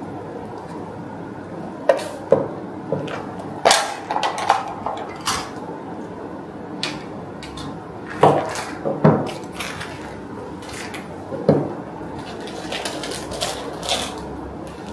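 Hard plastic tissue box cover and its base plate handled on a wooden tabletop: a scattered series of short clicks and knocks as the pieces are lifted, fitted and set down.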